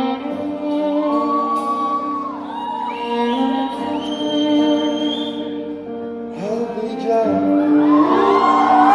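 Live stage performance of a Bollywood pop song: a sung melody with held, sliding notes over band accompaniment, echoing in a large hall, swelling louder near the end.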